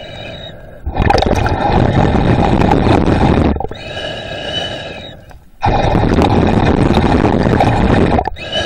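Underwater breathing of the swimmer holding the camera: two long, loud, rushing and bubbling breaths, each about two and a half seconds, about five seconds apart. In the pause between them a faint steady high whine can be heard.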